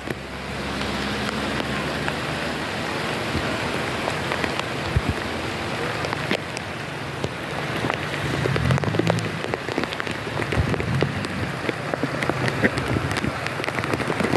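Heavy rain falling on a car, heard from inside, a steady hiss dotted with sharp hits of single drops.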